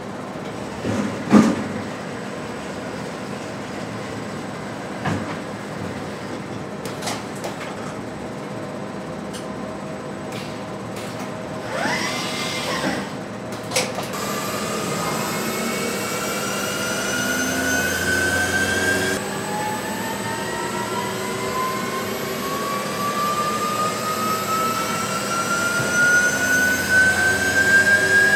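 Porsche Taycan electric drive unit being spun up on a test rig. A few mechanical knocks and clicks come first, one sharp knock about a second in. From about halfway a whine rises steadily in pitch as the motor and shafts speed up.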